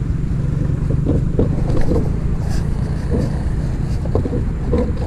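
Low rumble of road traffic, a vehicle running close by and easing off after about three seconds, with a few faint distant voices.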